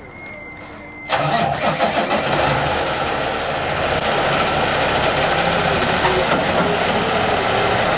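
An engine starts about a second in and keeps running loudly and steadily.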